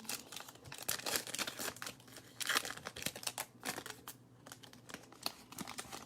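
Irregular crinkling and clicking as a stack of baseball trading cards from an opened pack is handled and flipped through.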